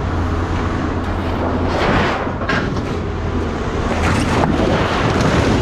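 An engine running steadily with a low hum, with two short rough noises about two and four seconds in.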